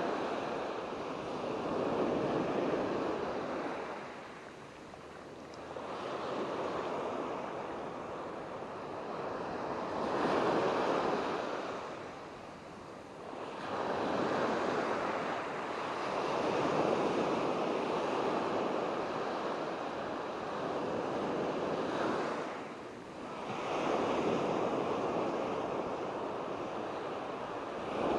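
Ocean surf: waves breaking and washing up the beach one after another, the sound swelling and ebbing every few seconds, with some wind on the microphone.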